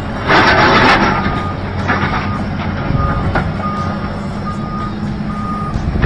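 Crawler excavator's diesel engine running under load with a steady low hum, its travel alarm giving short single-pitch beeps about once a second. A loud rush of noise fills the first second.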